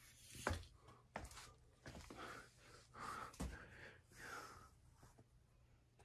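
Casablanca Four Seasons III ceiling fan starting back up in downdraft: a faint, low, steady hum, with a few soft knocks and breathy rustles over it.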